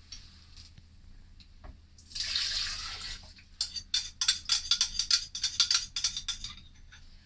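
Liquid pouring into a blender jar for about a second, then a quick run of sharp crinkling clicks, several a second for about three seconds, as a small packet is handled over the jar.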